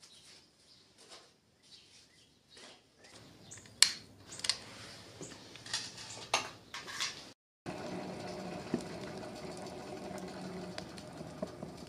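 Paper and cardboard rustling and crackling in a coal forge as the fire is lit, with scattered sharp clicks. After a cut about seven seconds in comes a steady low hum, the forge's air blower pushing air through the smoking coal.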